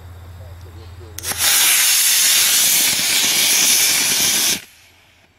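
Model rocket motors igniting with a click, then a loud rushing hiss that lasts about three seconds and cuts off suddenly.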